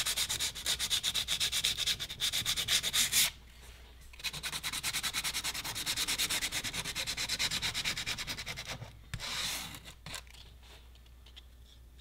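Coarse sandpaper rubbed by hand in quick, even back-and-forth strokes along the edges of plastic blocks, first white polypropylene and then black Delrin, roughening them for bonding. The strokes stop briefly a little after three seconds in, resume until about nine seconds, then one last short scrape.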